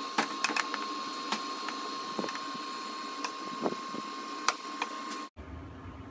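Wooden spoon scraping and knocking against a stainless skillet while stirring ground turkey frying over an induction cooktop, with a steady high whine beneath. About five seconds in it cuts off abruptly to a quieter low hum.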